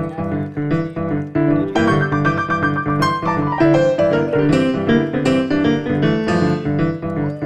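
Background piano music, a quick run of struck notes.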